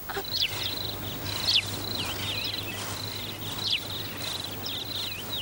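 Outdoor ambience of a steady, high-pitched insect trill, with short swooping chirps repeating over it every second or so.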